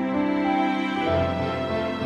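Slow, sad background music of sustained notes, with the chord changing about a second in.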